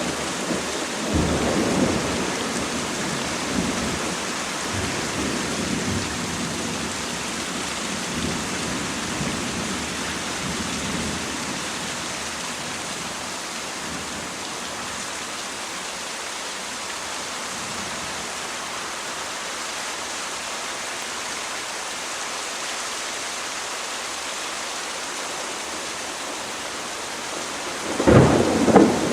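Thunderstorm: steady rain hissing throughout, with rolling thunder that dies away over the first ten seconds or so, then a new loud thunderclap near the end.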